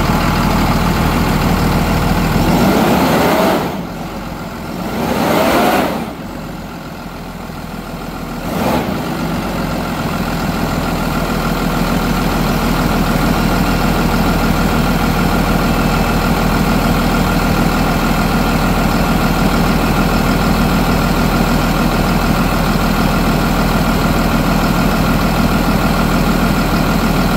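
2009 Kenworth T270's PACCAR six-cylinder diesel engine running in the open engine bay, just after starting. It is revved up twice in the first few seconds, dropping back each time, gets a short blip a little later, then idles steadily.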